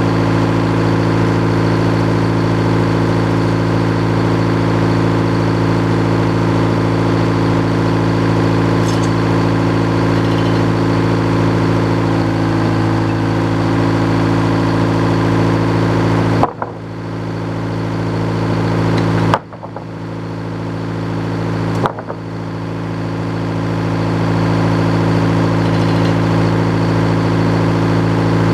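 An engine running at a steady speed, with three sharp clacks about halfway through, a few seconds apart.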